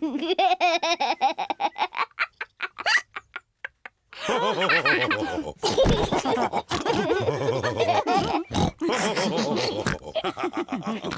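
Cartoon pig characters snorting and oinking as they laugh, in quick rhythmic bursts, with a brief silence about three seconds in before the voices start again.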